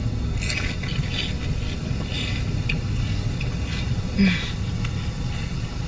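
Steady low rumble of a moving car heard from inside the cabin, with a few brief rustles on top.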